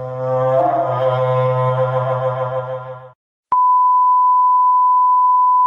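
Two clips from a sound-effects pack in turn. First a held musical sting with a buzzing, horn-like low note under higher tones, stopping about three seconds in. After a brief gap, a single steady electronic beep at one pitch starts with a click and holds for about two seconds, like a censor bleep.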